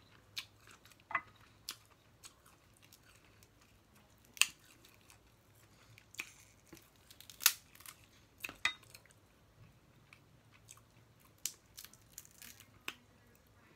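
Snow crab leg shells cracking and snapping in a dozen or so sharp, irregular clicks, with chewing between them.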